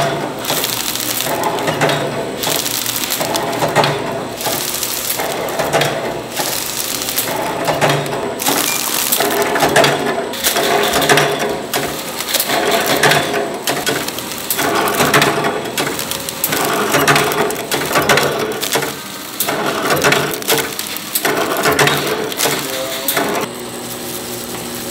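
Automatic flow-wrapping packaging machine running, its conveyor feed and film-sealing mechanism clicking and rattling in an even repeating cycle every second or two. The level drops to a quieter steady sound near the end.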